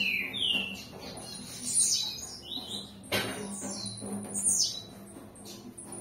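Caged blue-black grassquit (tiziu) singing its 'campainha' song: short, high, buzzy phrases that sweep downward in pitch, repeated about every two seconds.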